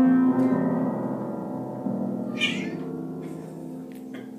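Upright piano notes sounded by a Ragdoll kitten's paws walking on the keys: a loud cluster of notes at once, a few more pressed a little later, all ringing on and slowly fading. About two and a half seconds in, the kitten gives a short meow.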